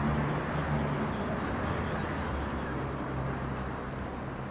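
Street traffic: the low hum of a passing car's engine fades away about a second in, over a steady wash of street noise.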